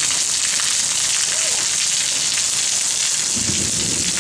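Heavy rain pouring down in a steady, dense hiss. A low rumble joins about three seconds in.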